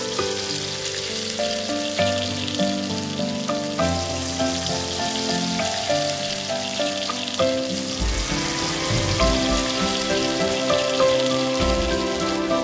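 Pumpkin-leaf-wrapped hilsa parcels sizzling steadily in hot oil in a frying pan, with background music over the top.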